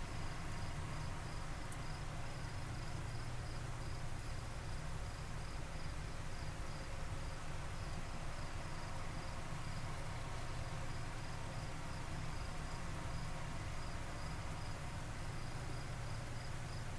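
Crickets chirping at night, a steady run of evenly spaced high chirps, over a steady low rumble.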